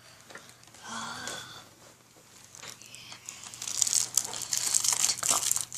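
Aluminium foil crinkling and tape tearing as they are handled around a camera lens, a dense crackle that grows louder in the second half.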